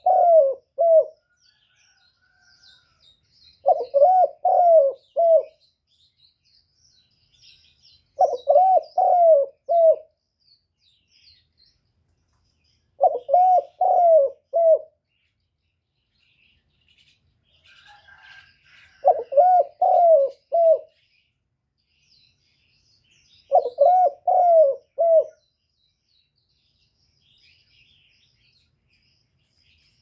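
Spotted dove cooing its 'kích bổi' call: short phrases of about four low coos, repeated about every four to five seconds. Faint chirps of small birds are heard behind it.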